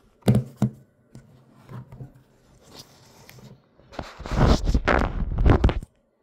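Smartphone being picked up and repositioned by hand: two sharp knocks near the start, then about two seconds of loud rubbing and bumping as fingers move over the phone, stopping suddenly near the end.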